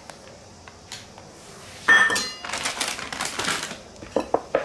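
A stainless steel measuring cup clinks against a steel mixing bowl about two seconds in, with a short metallic ring, followed by a couple of seconds of rustling and scraping and a few light clicks of steelware near the end.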